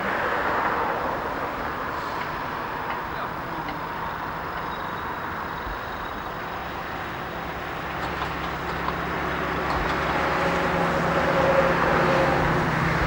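Diesel train engine running with a steady hum, growing louder over the last few seconds as it comes closer or works harder.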